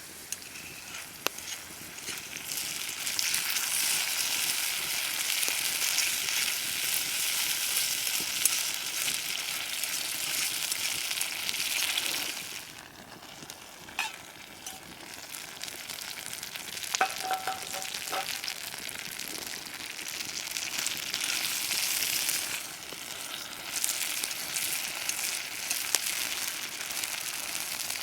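Food sizzling as it fries in a pan, swelling loud for several seconds, dying down about halfway, then sizzling up again. A few light metallic clinks about two-thirds of the way in.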